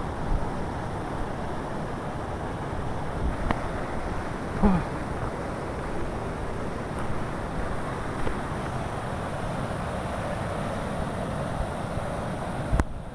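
Steady rushing noise of a motorbike ride along a rough, slippery dirt track, mostly wind on the microphone, with a few short knocks from bumps.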